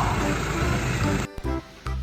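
Background music with a steady bass line, cutting off abruptly a little over a second in.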